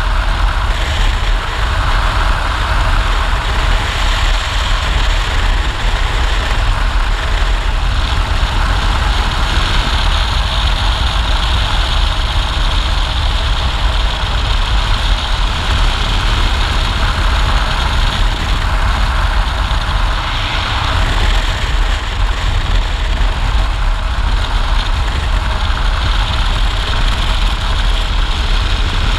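Adventure motorcycle cruising at road speed: a steady rush of riding wind on the microphone over the engine's low drone.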